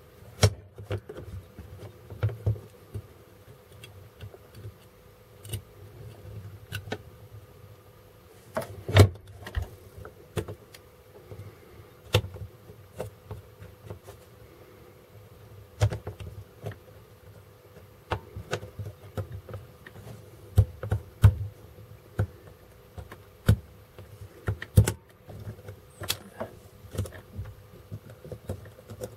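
Plastic parts of a desoldering gun's housing being handled and fitted together: irregular clicks, taps and knocks of plastic, a few of them sharper, over a faint steady hum.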